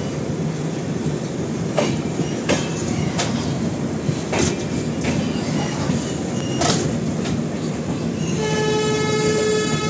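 Train running at speed alongside a container freight train on the next track: a steady rumble of wheels on rail with several sharp clacks over the rail joints. Near the end a train horn blows one steady note for about a second and a half.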